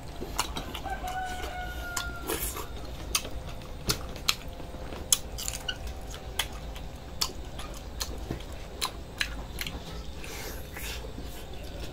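A person eating braised pork knuckle: wet chewing and lip-smacking, with a dozen or so sharp, irregular mouth clicks.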